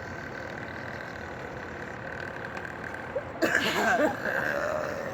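A steady background hum, then about three and a half seconds in a loud, croaky, drawn-out burp lasting about a second and a half.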